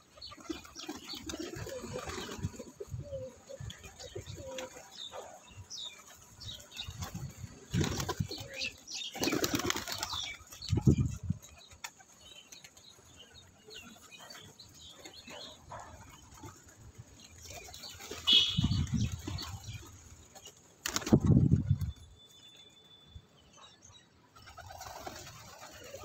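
A flock of domestic pigeons around feed: wings flapping as birds take off and land, in several loud sudden bursts, with some cooing.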